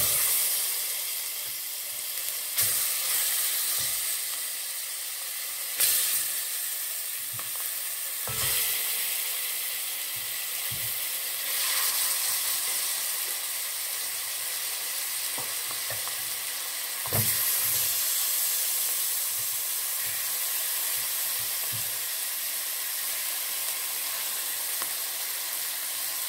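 Seasoned chicken pieces sizzling in hot oil and curry powder in a pot, the sizzle flaring up sharply each time another piece goes in, about five times.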